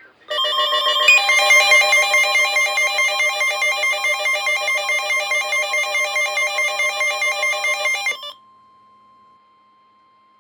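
Electronic emergency alert tone: a loud, buzzy alarm of several pitches at once, pulsing a few times a second for about eight seconds, then cutting off sharply. A faint steady tone lingers after it, marking the gap between two tornado-warning broadcasts.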